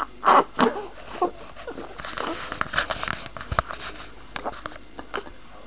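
A two-month-old baby with hiccups making a run of short, breathy vocal sounds, the two loudest in the first second.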